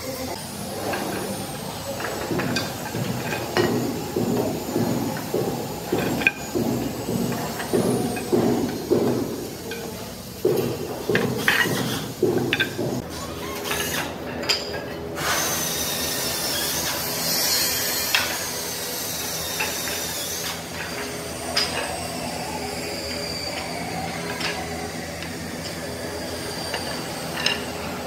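Woodworking sounds from building wooden stairs: irregular knocks and clatter of wood being handled and worked. About halfway through these give way to a steadier scraping noise with a faint whine, and a few knocks follow.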